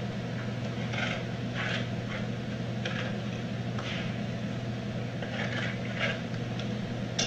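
A utensil scraping ranch dressing across a hard corn taco shell in several short, irregular scrapes, over a steady low hum.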